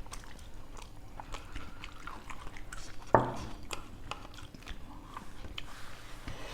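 Close-up chewing and biting of food, with small wet mouth clicks. A brief, sharper sound about three seconds in is louder than the rest.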